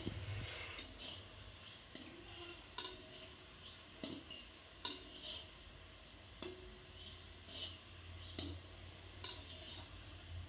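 Wire-mesh skimmer knocking and scraping against a steel wok, about eight sharp metallic clicks at uneven intervals, some ringing briefly, over the faint sizzle of gulab jamun frying in oil.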